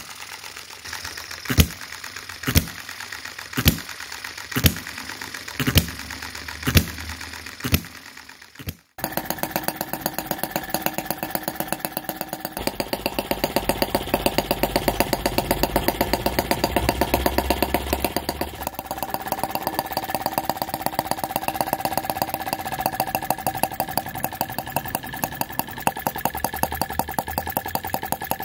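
Miniature single-cylinder gas engine firing a sharp pop about once a second. About nine seconds in, after a cut, a miniature petrol engine runs fast and steady.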